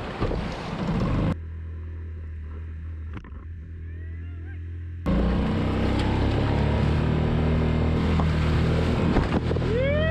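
Rushing water and surf for about the first second, then a small outboard motor on a skiff running low and steady; about five seconds in it is throttled up and runs louder as the boat gets under way. A bird calls a few times near the end.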